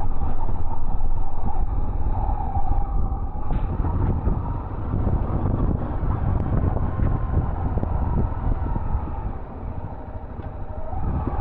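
Honda XRE300 single-cylinder engine running as the motorcycle rides over a wet gravel and mud road, with tyre noise and wind on the microphone.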